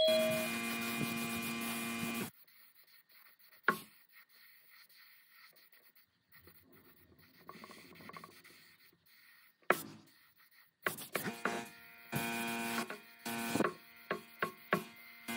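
A small electric motor hums at a steady pitch, stops about two seconds in, leaving a quiet stretch with a few sharp clicks, then runs again about eleven seconds in with rubbing and repeated clicks against the work.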